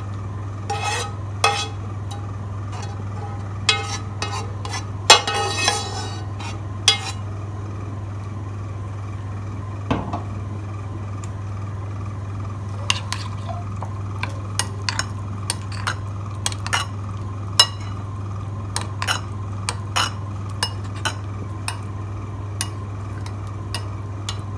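Metal spoon scraping and clinking against a glass bowl and a frying pan, as cooked vegetables are spooned into egg mixture and stirred in. The taps come in a cluster in the first few seconds, thin out, then return as a quicker run of clinks in the second half, over a steady low hum.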